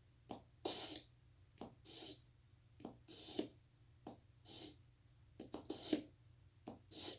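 The dull stainless blade of a cheap multi-tool pocket knife is being sharpened, drawn stroke after stroke across a sharpener. About a dozen short rasping strokes come in pairs, roughly one pair every second or so.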